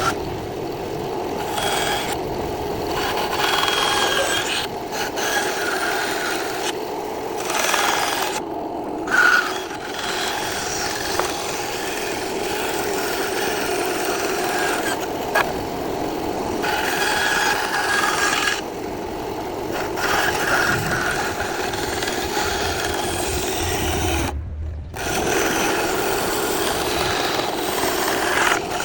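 Mini bandsaw running steadily while its blade cuts wood, the higher rasp of the cut coming and going as the workpiece is fed and turned along the profile, with a few brief breaks.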